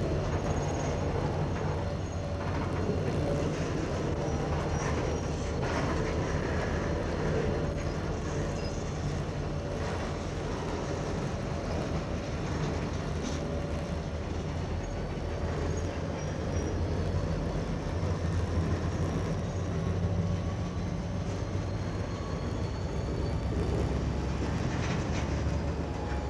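CSX freight train rolling by with a steady low rumble of diesel engines and cars, broken by occasional clanks. A faint high squeal glides in near the end.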